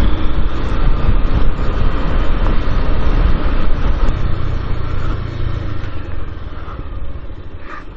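Motorcycle running while being ridden, with a heavy low rumble on the head-mounted microphone. It gets quieter over the last few seconds.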